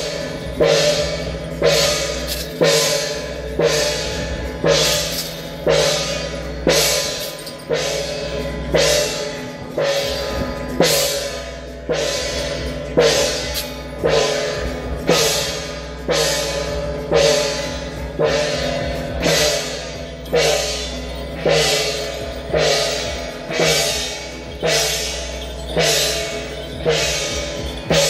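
Temple-fair percussion music accompanying a Jia Jiang troupe's performance: a steady beat of cymbal and drum strikes, about one a second, each crash ringing on, over a steady low hum.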